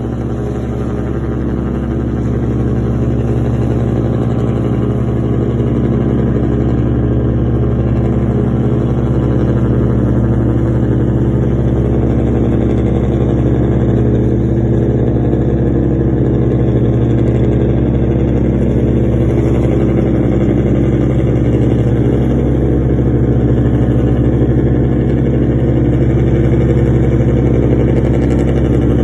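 A fishing boat's engine running steadily at constant speed, a loud even drone that grows a little louder over the first few seconds and then holds.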